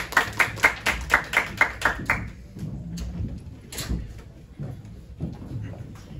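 Hands clapping in a quick, even rhythm that stops about two seconds in, followed by a few scattered knocks and footsteps on a hard floor.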